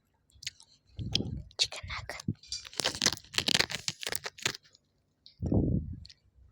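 Close-miked crunching and chewing of crisp food, a dense run of sharp crackles in the middle with softer, muffled mouth sounds either side.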